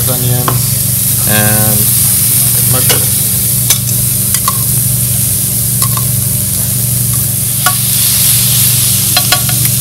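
Onions, mushrooms and bell pepper strips sizzling in a hot nonstick frying pan as they are stirred, a steady hiss with scattered clicks of the utensil against the pan. A steady low hum runs beneath.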